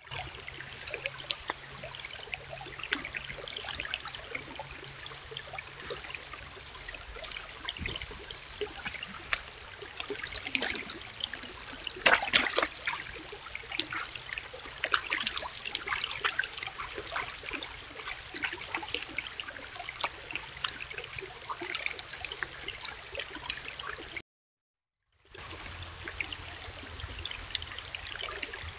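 Shallow rocky stream babbling and trickling over stones, with a brief louder burst about twelve seconds in. The sound drops out for about a second near the end.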